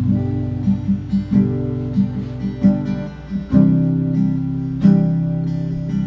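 Acoustic guitar plugged into a Fender Passport Venue PA system, playing chords picked and strummed in a steady rhythm as a sound check. It comes in at once and carries on without a break.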